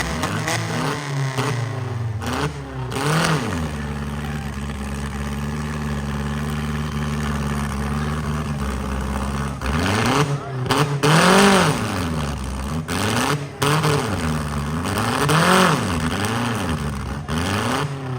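Demolition derby car engines revving hard, the pitch rising and falling over and over, held steady for several seconds in the middle.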